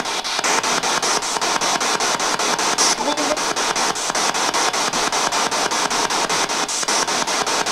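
Spirit box sweeping radio channels: a steady hiss of static chopped about five times a second. A brief fragment about three seconds in is taken for a child's voice.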